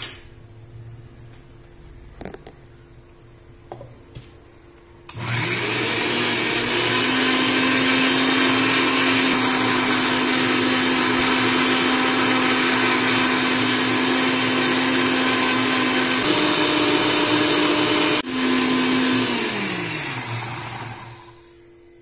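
Electric mixer grinder with a stainless steel jar grinding chutney paste. The motor starts about five seconds in with a rising whine, runs steadily, cuts out for a moment and restarts, then winds down with a falling pitch near the end.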